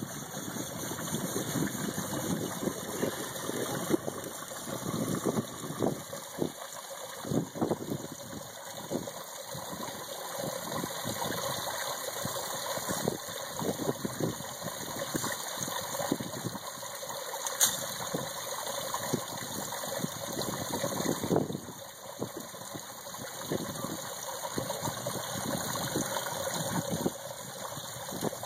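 Water from a tiered fountain pouring down its ice-encased tiers into the basin: a steady rush broken by frequent irregular splashes.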